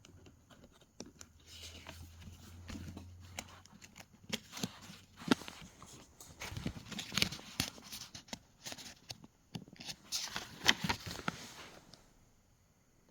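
Paper handling: rustling and clicks as the pages of a printed manual are turned and smoothed flat, coming in irregular bursts and stopping about a second before the end.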